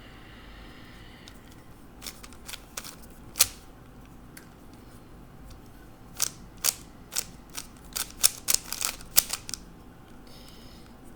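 3x3 Rubik's cube being turned by hand: sharp plastic clicks as the layers snap round, a few spaced turns and then a quicker run of about a dozen.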